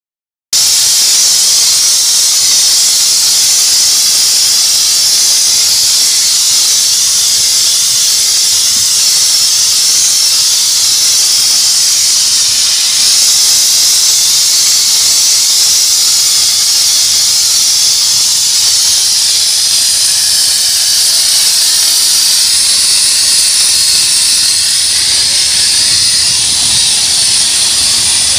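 Suttner ST-860D wet steam spray gun's jet, a steady, loud high hiss that cuts in about half a second in and holds evenly as the steam sprays against a concrete wall.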